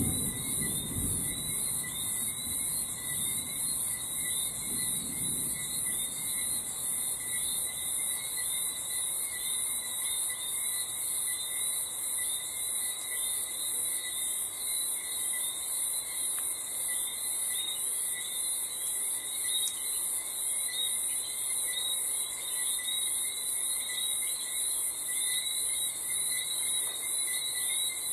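Crickets chirping in a dense, steady chorus. A low rumble of distant thunder fades away over the first few seconds.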